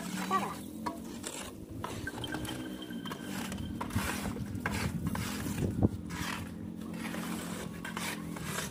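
Wet cement slurry being scraped and dragged across a brick-tile floor with a straightedge, with water from a hose splashing onto it. One sharp knock about six seconds in.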